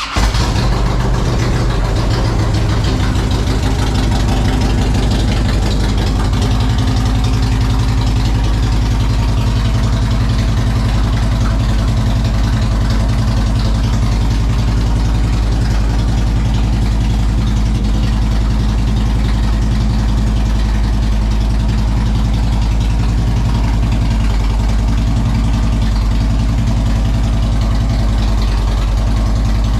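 2007 Harley-Davidson Road King Custom's Twin Cam 96 V-twin engine starting up and then idling steadily. It fires now that the alarm's key fob has a fresh battery.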